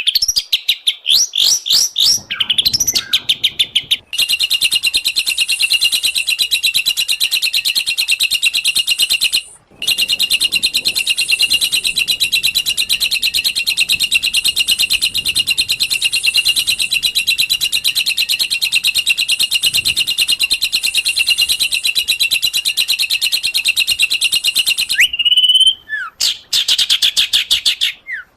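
Recorded songbird song of the kind played as masteran to tutor cage birds: a few quick rising whistled notes, then a long, very fast, high trill of rapidly repeated notes that runs for about twenty seconds with one short break, ending in a few slurred whistles.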